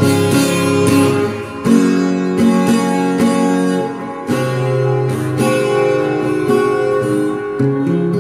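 Acoustic guitar playing a melody of picked notes over changing chords.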